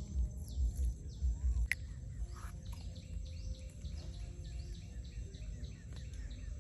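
Birds chirping, many short repeated chirps, over a steady low rumble, with a single sharp click a little under two seconds in.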